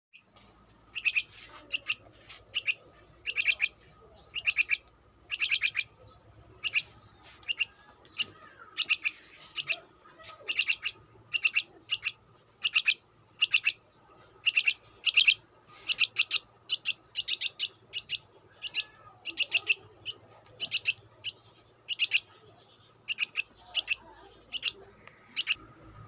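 Young myna chirping over and over in short clusters of several rapid notes, about one to two clusters a second.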